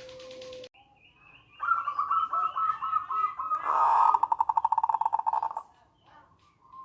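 Zebra dove (perkutut) calling: a run of short coo notes begins about a second and a half in and runs into a fast rattling trill, the 'nretek' call, which stops abruptly near the end.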